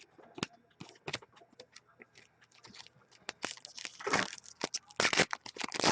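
Trading-card packs being handled and opened: wrappers crinkling and tearing and cards riffling, a run of irregular crackles that gets busier about halfway through.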